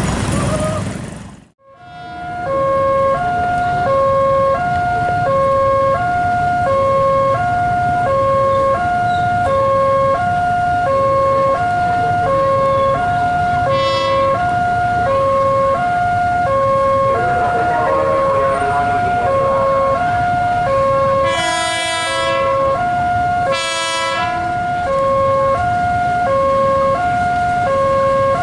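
Level-crossing warning alarm sounding steadily, an electronic two-note signal alternating over and over, over the low rumble of an approaching KRL electric commuter train (ex-JR 205 series). Past the middle the train's horn gives two short blasts about two seconds apart. The sound drops out briefly near the start.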